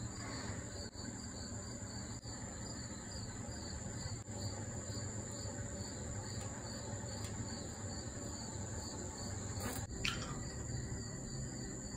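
Crickets chirping: a steady high trill with a softer, regular pulsing beneath it. About ten seconds in there is a brief knock.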